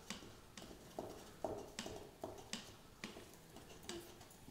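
Spatula scraping and knocking against a stainless steel mixing bowl as stiff pound cake batter is pushed out into a tube pan: a quiet series of short clicks and knocks, about two a second.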